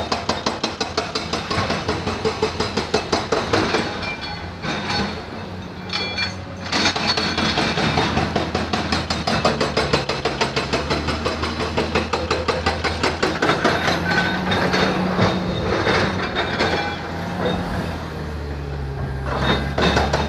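An engine running with a steady low hum and a rapid, regular clatter of about five knocks a second.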